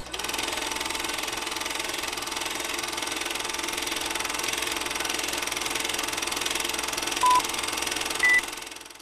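Film projector sound effect: a steady mechanical whirring rattle, with two short beeps about a second apart near the end, the second higher, then fading out.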